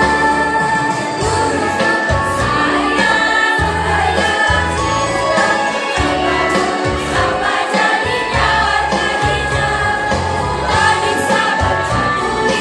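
Girls' choir singing over a recorded accompaniment with a pulsing bass beat, amplified through PA loudspeakers.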